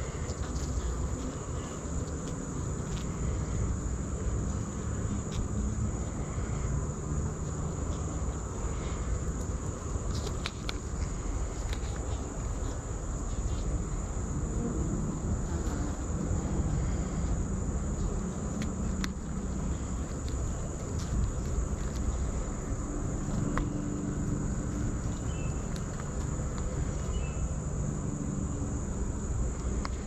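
A mass of honey bees buzzing close up in a steady hum from a brood frame and open hive box; the hum swells and fades a little.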